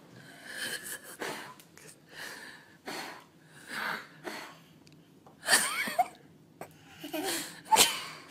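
Young children blowing hard at birthday candles again and again: a string of short breathy puffs about once a second, the strongest two more than halfway through, one of them with a brief voiced squeak.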